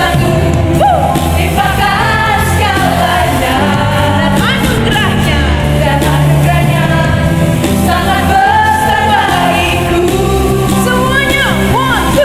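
Live church worship band playing a pop-style praise song, with singing over bass, keys and drums.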